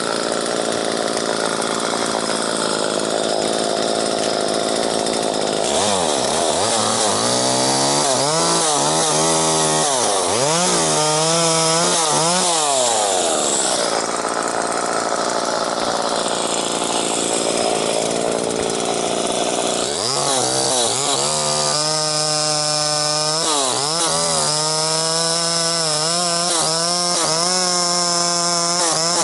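Two-stroke gas chainsaw running and cutting elm wood: its engine revs rise and fall again and again, then hold steady at high revs through most of the last seven seconds.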